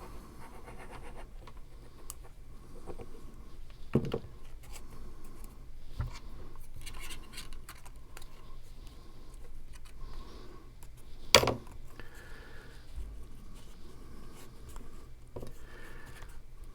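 Cardstock pieces being handled and fitted together: soft paper rustling and scraping, with two sharp taps, one about four seconds in and a louder one a little past eleven seconds.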